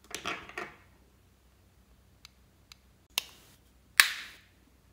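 Small plastic makeup compacts being handled: a brief rustling crackle at the start, then a few sharp plastic clicks, the loudest about four seconds in.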